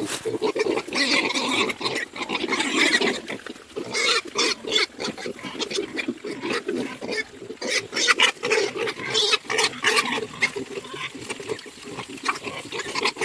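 A group of piglets grunting and squealing in irregular bursts, several at once and without pause.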